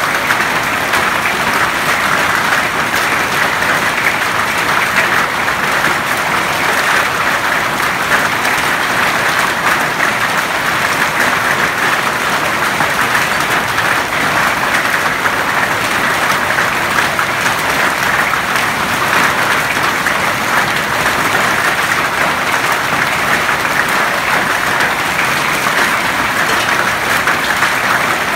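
Hailstorm: hail and rain pelting a lawn and paved yard, a loud, steady, dense patter of countless small impacts.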